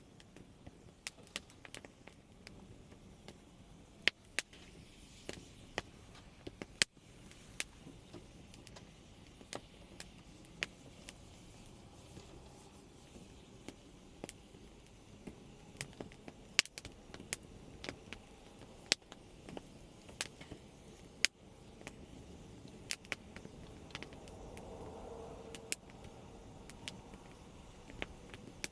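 Wood campfire crackling: irregular sharp pops and snaps over a low steady background. Near the end a car passes faintly on a road, a hum that swells and fades.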